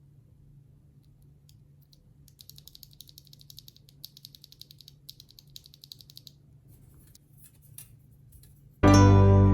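Quiet typing on a Fuhlen H75s mechanical keyboard with fully lubed Fuhlen Crystal linear switches on an aluminium plate: a fast run of keystrokes for about four seconds, then a few single key presses. Loud music cuts in suddenly near the end.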